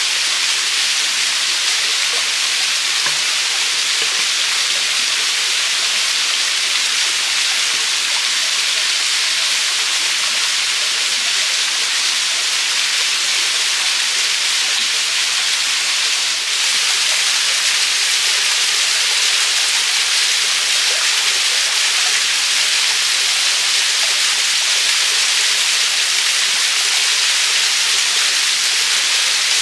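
Small waterfall and stream water splashing into a rocky pool: a loud, steady, even rush of water.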